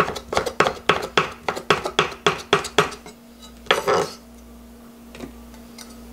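Kitchen knife chopping ham into thin strips on a wooden cutting board: quick, even knocks about five a second for some three seconds, then a short clatter about four seconds in.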